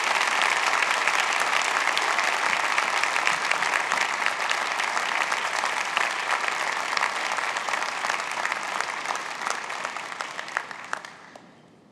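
A large audience applauding, a dense mass of clapping that tapers off and dies away over the last couple of seconds.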